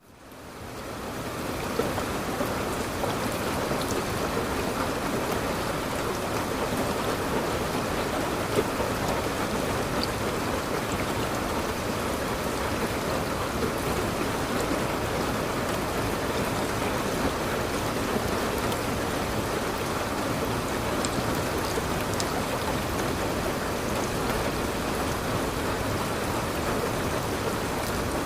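Steady rain falling and pattering on a surface, with scattered individual drops heard; it fades in over the first second or so and then holds even.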